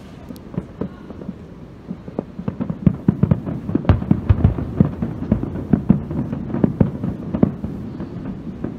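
Aerial fireworks shells bursting in a rapid, overlapping barrage of a finale: a dense string of deep booms and cracks that grows much thicker about two seconds in.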